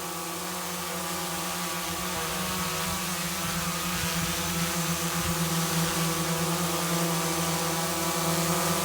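Autel Evo 2 quadcopter hovering on its original stock propellers: a steady, many-toned buzz of motors and props that grows gradually louder.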